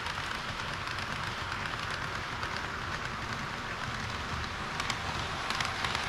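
HO-scale model train wheels rolling on metal track, a steady rushing rattle as a rake of tank wagons runs past. About five seconds in, sharper clicks of wheels over rail joints join it as a red KiHa 40 series diesel railcar model passes close by.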